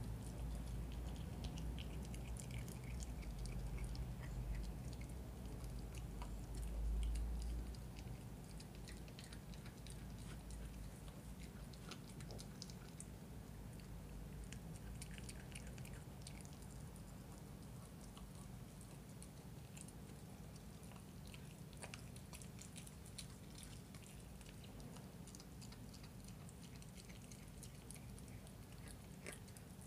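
Miniature schnauzer puppy chewing and gnawing a raw chicken drumstick: faint, irregular small clicks and crunches of teeth working meat and bone.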